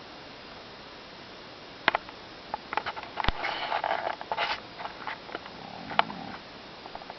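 Irregular snoring and snorting: sharp clicks, then a noisy snorting breath about a second long, then a shorter, lower snore near the end.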